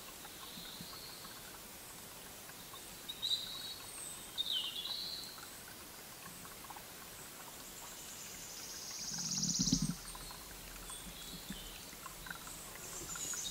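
Forest ambience with short bird calls, several in the first five seconds. About nine seconds in, a buzzy sound swells for about a second and cuts off sharply, with a low thud as it stops.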